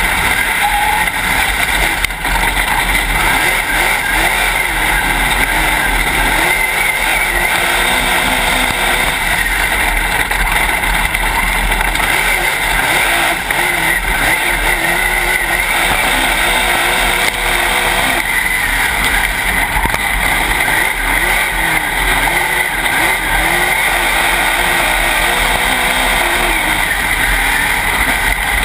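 Dirt late model race car's V8 engine at racing speed, heard from inside the cockpit, its pitch rising and falling every few seconds as the driver gets on and off the throttle, under a constant wash of wind and track noise.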